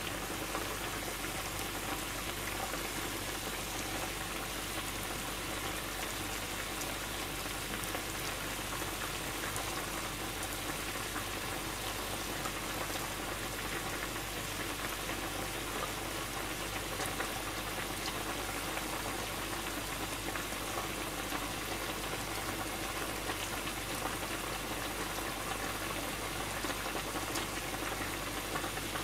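Broth for a beef nishime boiling in a skillet over high heat, a steady bubbling crackle.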